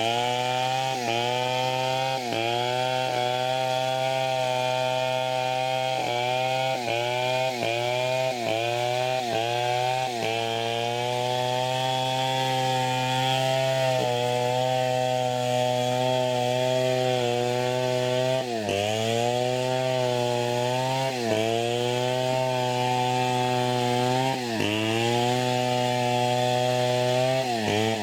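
Two-stroke chainsaw running at high revs while cutting teak, its pitch dipping briefly and recovering again and again as the chain bites under load. The dips come about once a second through the first ten seconds or so, the pitch holds steadier in the middle, and a few longer dips follow.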